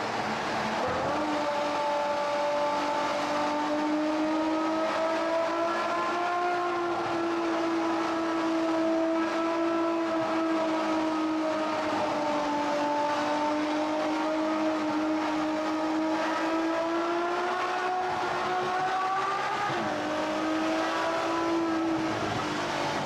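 Ferrari F12 Berlinetta's naturally aspirated 6.3-litre V12 heard from inside the cabin, cruising at fairly steady revs. Its note drifts slowly up and down, dips briefly and picks up again about twenty seconds in, and falls once more at the end.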